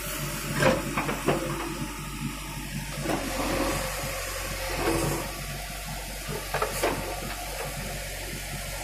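JCB 3DX backhoe loader's diesel engine running steadily while its backhoe bucket digs into soil. A few sharp knocks come about a second in and again near seven seconds.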